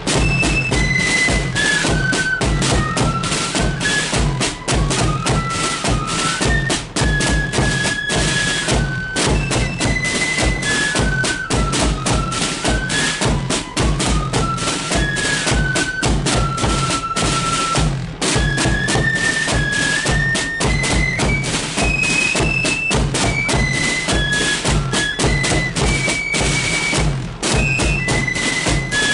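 Marching flute band playing a tune: the flutes carry one high melody in unison over rapid snare drumming and a steady bass drum beat.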